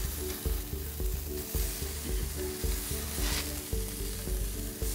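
Seasoned chicken sizzling on a hot grill grate as it is laid down and moved with tongs. Background music with a steady beat plays underneath.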